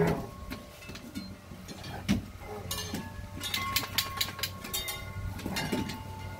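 Rhodesian Ridgebacks' claws clicking and scrabbling on wooden deck boards as the dogs play, with a dense run of rapid clicks in the middle.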